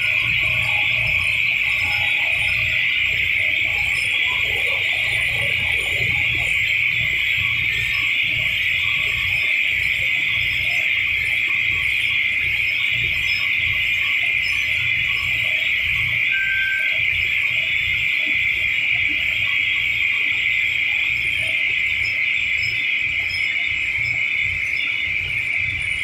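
Steady high-pitched hiss with a low, regular pulsing underneath, the running noise of ice plant machinery.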